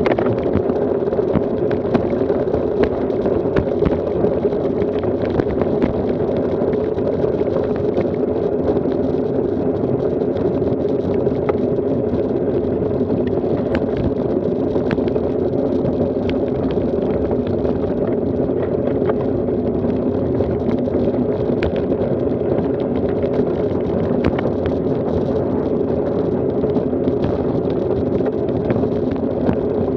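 Steady rumble of wind and road noise from a road bicycle riding on rough country asphalt, with scattered small rattles from bumps in the road.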